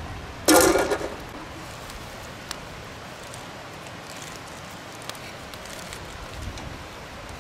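A woman's short loud call or word about half a second in, then a steady outdoor hiss with a few faint knocks as dried maize cobs are handled.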